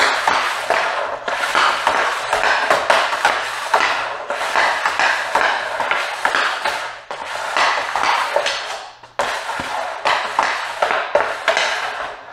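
Hockey stick blade and a Fly Puck Pro, a 6-ounce training puck, scraping and clacking across a hard floor in rapid stickhandling, in long runs with brief pauses.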